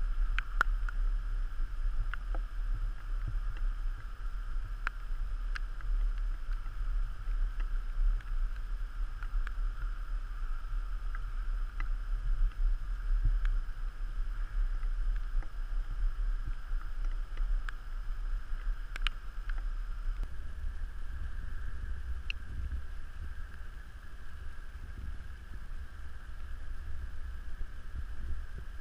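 Muffled wind and water noise from a Hobie Tandem Island sailing kayak under way, with a steady low rumble and scattered small clicks and knocks from the boat. The low rumble shifts about two-thirds of the way in.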